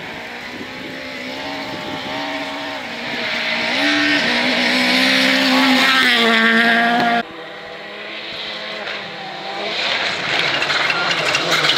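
Rally car engine revving hard and rising in pitch through several gear changes as the car slides past on gravel. It cuts off abruptly about seven seconds in, and a second rally car is heard approaching, its engine getting steadily louder toward the end.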